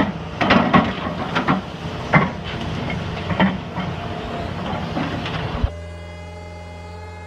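A heavy excavator's engine runs under load while wood and roots crack and snap, with about a dozen sharp cracks over five seconds as a stump is torn out. Near six seconds the sound cuts off abruptly and gives way to a quieter, steady hum.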